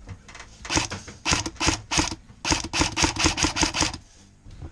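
Airsoft gunfire: about fourteen sharp clicking shots over three seconds, spaced at first, then a quick run of about six a second that stops about four seconds in.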